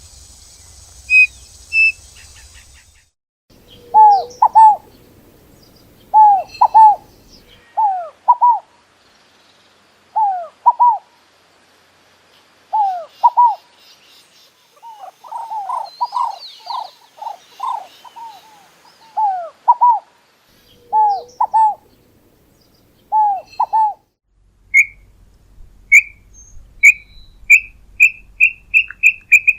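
Birds singing in three separate recordings, one after another. First come short high chirps. Then a bird repeats pairs of lower, downward-sweeping notes about every two seconds, with a quicker run of notes in the middle. Near the end a different bird gives a speeding-up series of high notes that ends in a falling trill.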